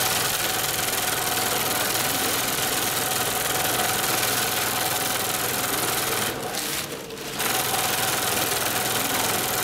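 Long-arm industrial zigzag sewing machine running steadily as it stitches sail fabric. It stops briefly twice about two-thirds of the way through, then runs on.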